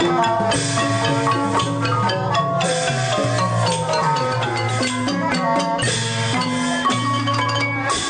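Traditional Mon ensemble music, with a curved Mon gong circle (khong mon) playing a quick run of short ringing notes over a steady low tone.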